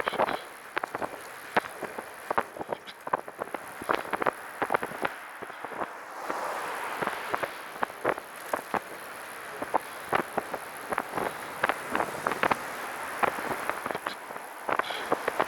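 Random, irregular rattling clicks from the rear of a Catrike 700 recumbent trike while it is ridden, over steady rolling and wind noise. The rattle comes from behind the rider's seat, possibly near the rear wheel, with no visible cause.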